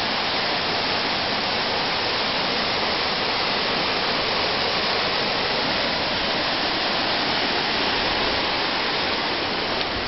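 Steady rush of water from a rocky mountain stream and waterfall, an even unbroken noise.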